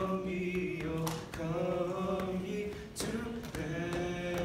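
A small mixed group of teenage voices singing a Christmas carol unaccompanied, holding long notes.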